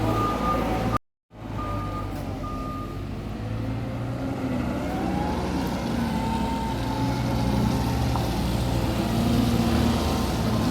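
A heavy vehicle's engine running, with its reversing alarm giving evenly spaced beeps that stop about three seconds in; after that only the engine hum goes on. The sound cuts out completely for a moment about a second in.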